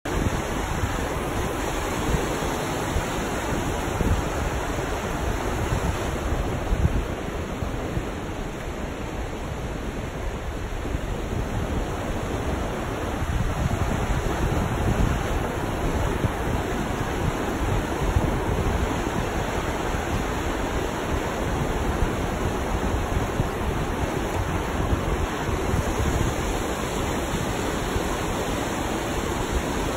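Steady rush of river rapids pouring over rocks, with wind buffeting the microphone in uneven gusts.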